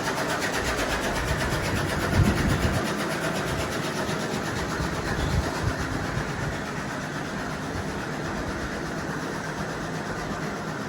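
A machine running steadily, with a couple of low thumps about two seconds in and again around five seconds.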